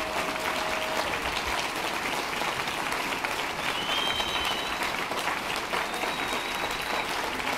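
Large audience applauding steadily, dense clapping with a couple of high whistles about halfway through and near the end.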